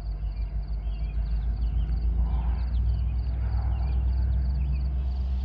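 Diesel locomotive engine running with a steady low rumble, growing slightly louder.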